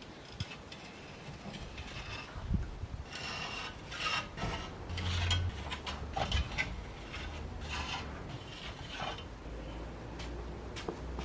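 Old rusted louvre window being worked open and shut, its metal pivots and winder squeaking and grating in a series of strokes: the louvre mechanism is rusty.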